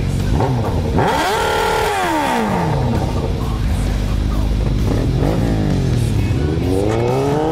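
Several motorcycle engines idling and revving as riders pull away. The engine pitch rises sharply and falls about a second in, and climbs again in rising sweeps near the end.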